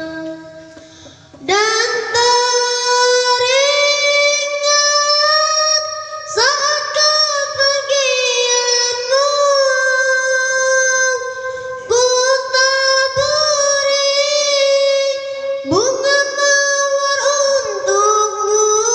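A child's voice singing a syair, a chanted memorial poem for a late father, in long held notes with ornamented slides between pitches. Four phrases, each starting after a short breath.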